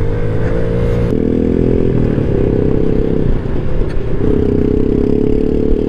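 Honda Ruckus 49 cc scooter engine running at steady throttle, its note easing off briefly a little past the middle and picking up again, over a low rumble of tyres on the dirt road.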